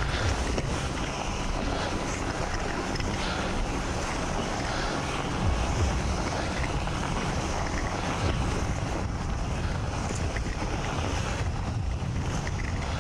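Wind buffeting the microphone of a camera on a moving bicycle, over a steady hiss of its road tyres rolling through fresh snow.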